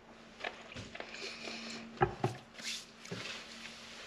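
A person eating a cookie bar: small mouth sounds of chewing and licking fingers, with a couple of light knocks about two seconds in. A faint steady hum sits underneath.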